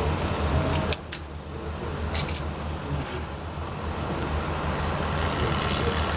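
Steady low mechanical hum, like a fan or air-conditioning unit, with a few light clicks and crackles about one, two and three seconds in from a macaque picking through peanut shells on a tiled floor.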